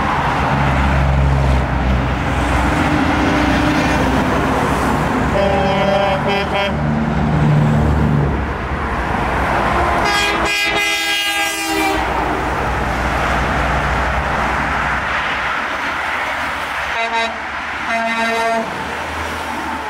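Convoy of trucks and other vehicles passing on a highway with a steady rumble of engines and tyres, and horns honking over it: a honk about five seconds in, a loud horn blast held for about two seconds near the middle, and two short honks near the end.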